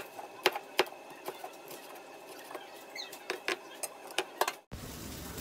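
Chef's knife slicing a bell pepper into strips on a wooden cutting board: sharp, irregular knocks of the blade striking the board, a few a second. Near the end the knocking stops abruptly and a steady hiss takes over.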